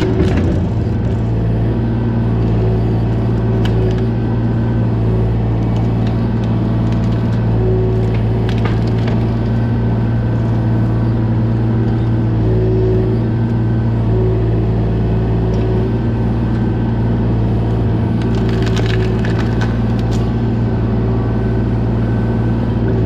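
Kubota KX040 mini excavator's diesel engine running steadily under load, with a hydraulic tone that comes and goes. Over it, tree roots crack and splinter in several short clusters, the longest near the end, as the ripper tooth tears through them.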